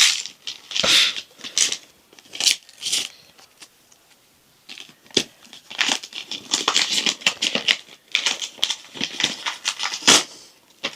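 Wrapping paper being torn and crinkled off a present, in irregular rustling bursts with a short pause about four seconds in.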